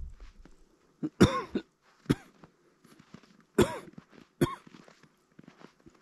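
A person coughing: two loud coughs about two and a half seconds apart, each followed by a shorter, sharper one.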